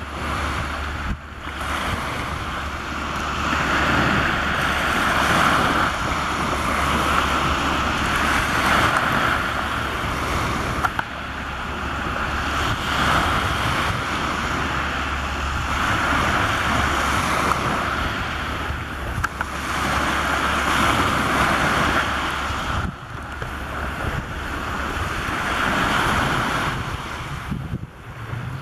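Sea waves washing onto a pebble shore, the surf swelling and easing every few seconds, with wind rumbling on the microphone.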